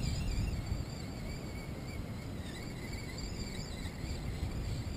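Wind rumbling on the microphone over open sea, with a faint, wavering high-pitched whine.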